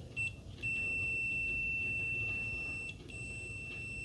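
Aneng 613 multimeter's continuity beeper sounding a steady high-pitched tone as the test leads are shorted: a short blip, then a long tone of about two seconds, a brief break, and the tone again near the end. It is not very loud, about 63 dB on a sound meter beside it.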